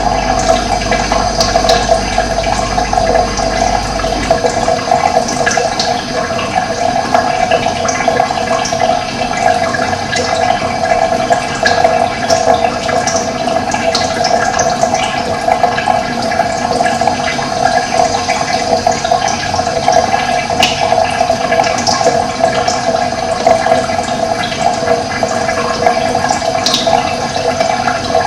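Running water rushing steadily, with brief bird chirps scattered over it.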